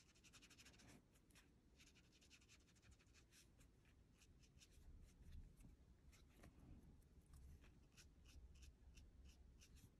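Faint colored pencil strokes scratching on paper: a quick run of short back-and-forth strokes.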